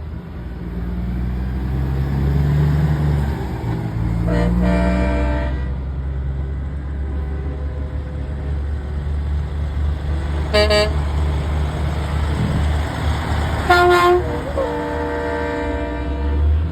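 Semi trucks' air horns blasting several times, some short and some held, over the steady low rumble of big diesel truck engines going by. The horns are loud enough to hurt the ears.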